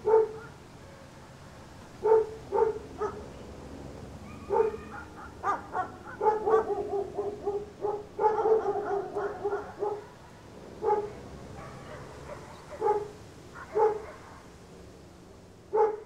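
A dog barking: short single barks every second or two, with a longer, busier run of barking in the middle.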